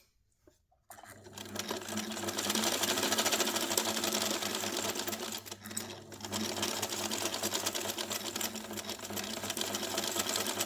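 Singer 99K sewing machine running at speed: a fast, even rattle of needle strokes that starts about a second in and eases briefly midway.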